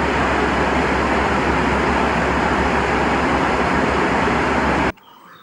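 Steady, loud vehicle noise with a low hum that cuts off abruptly about five seconds in, leaving a quiet room.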